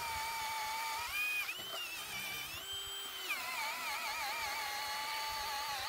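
Ryobi 18V brushless hammer drill on high speed boring a 1-inch hole with a speed bore (spade) bit: a steady motor whine that sags and wobbles in pitch under load and climbs higher for a moment about three seconds in.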